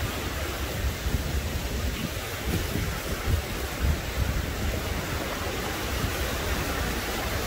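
Small surf breaking and washing up a sandy shore: a steady hiss with an uneven low rumble beneath it.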